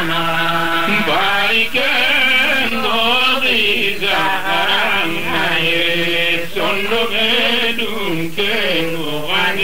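Chanted singing: a voice holding long, wavering notes in phrases that break every second or so, over a steady low tone.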